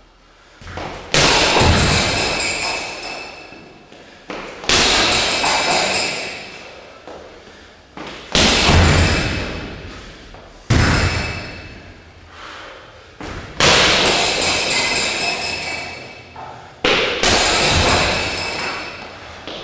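Side kicks landing on a heavy punching bag: a heavy thud about every two to four seconds, six in all, each followed by the bag's hanging chains jangling and ringing as it swings, fading over a couple of seconds.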